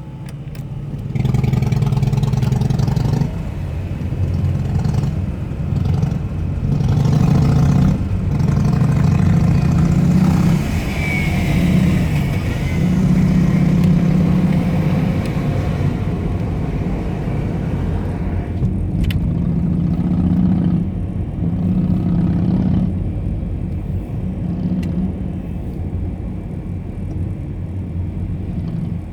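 Harley-Davidson motorcycle's V-twin engine running, revved again and again in blips of a second or two that drop back toward idle between them.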